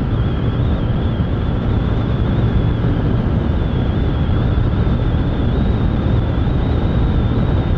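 Steady wind rush over the microphone mixed with the engine of a 150 cc motorcycle at highway cruising speed, with a faint steady high whine.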